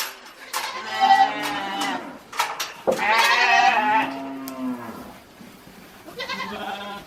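Cows mooing: two long moos, about a second in and about three seconds in, then a shorter, fainter one near the end.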